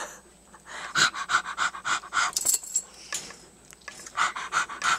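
African grey parrot imitating a dog's panting: two runs of quick puffs, about five a second, the first starting about a second in and the second near the end.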